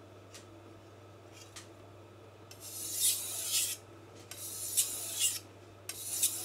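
Chef's knife blade drawn across a King Deluxe 1000-grit water stone: three separate hissing sharpening strokes of about a second each, starting about two and a half seconds in, after two light ticks. These are the last few passes on one side of the blade to finish the edge on this stone.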